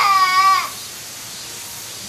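A goat bleating: one wavering, pitched bleat that stops about two-thirds of a second in, followed by a pause with a faint steady hiss.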